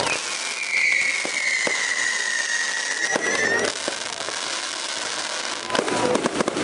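Fireworks display: a long high whistle lasting about three seconds, with scattered bangs and crackles around it. The crackling thickens into a dense rapid crackle near the end.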